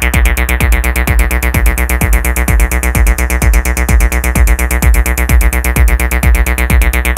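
Acid techno track from a drum machine and synthesizers: a steady kick drum about twice a second under dense, rapid hi-hats.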